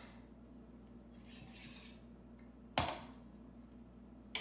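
A wire whisk knocking against a stainless steel mixing bowl of batter: one sharp metallic clink with a short ring about three seconds in, and another near the end.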